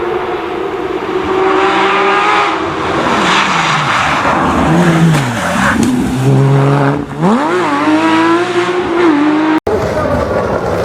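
Rally car engine at high revs. About halfway through the revs drop steeply as the driver lifts off and brakes, then climb sharply again under full throttle. An abrupt cut near the end switches to another car running.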